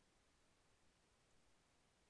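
Near silence: a faint, steady hiss with no thunder or other sound.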